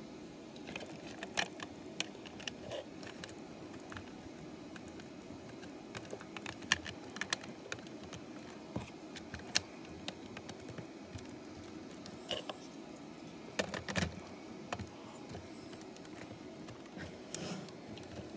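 Plastic LEGO pieces clicking and tapping as they are handled and pressed onto a model locomotive's body: irregular sharp clicks, with a quick flurry about three-quarters of the way through, over a faint steady hum.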